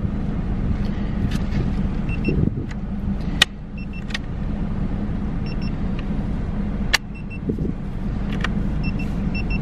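Cybex infant car-seat base sounding short paired high beeps about every one and a half seconds, its warning that an installation indicator is not showing green. Two sharp clicks come about three and a half and seven seconds in, over a steady low rumble.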